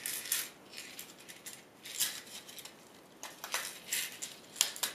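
Small screws and parts clicking and rattling as they are put back into a small box, in a few scattered clusters of light clicks.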